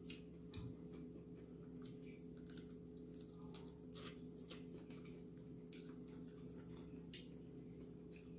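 Faint sounds of eating with the hands: scattered wet lip smacks and small clicks from chewing shrimp and licking fingers, over a steady low hum.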